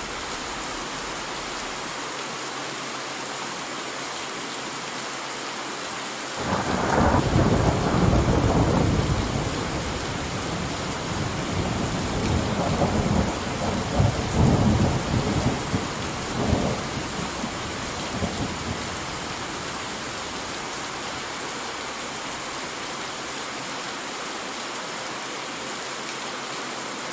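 Steady rain falling. About six seconds in, thunder breaks and rumbles on in several swells for some twelve seconds before fading back under the rain.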